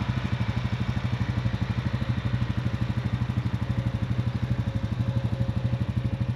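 A vehicle engine running steadily at low revs, with a fast, even pulse.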